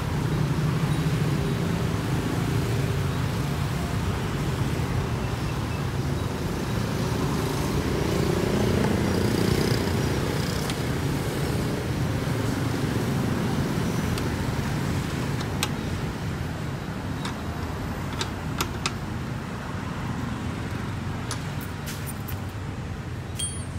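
Vehicle engines and road traffic: a steady low rumble that swells about eight to ten seconds in, with a few sharp clicks in the second half.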